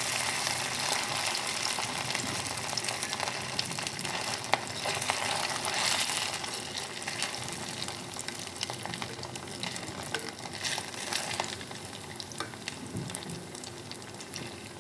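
Cut idli pieces frying in hot oil: a dense crackling sizzle, loudest at first and slowly dying down, with scattered light ticks as the pieces are stirred.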